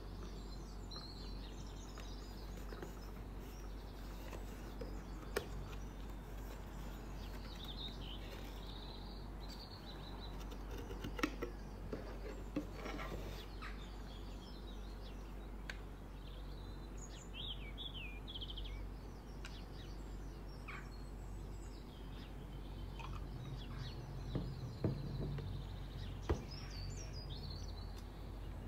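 Birds chirping faintly in the background over a steady low hum, with occasional taps and clicks as a perfume bottle is handled and lifted out of its cardboard box.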